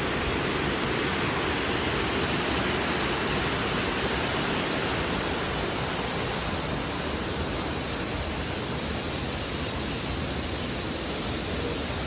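Water rushing steadily over a small rocky cascade in a stream.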